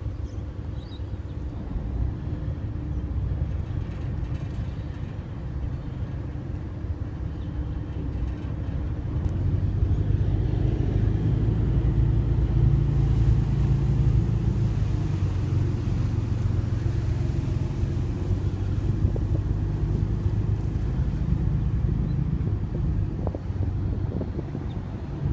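Passenger ferry's diesel engines running with a steady low drone, growing louder about ten seconds in, with wind noise over it.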